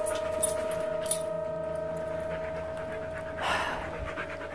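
A person breathing heavily, with one loud breathy exhale about three and a half seconds in, over a steady high-pitched electrical whine and a few light clicks early on.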